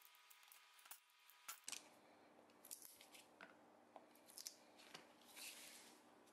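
Faint, scattered clicks and snaps of pliers gripping and prying plastic clamp pad caps that have stuck to cured epoxy, with a short soft scrape a little past five seconds in.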